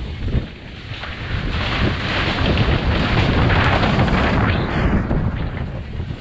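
Wind rushing over a helmet-mounted camera's microphone, with tyre rumble and rattling knocks from a mountain bike descending a rough dirt trail. The rush swells louder through the middle and eases near the end.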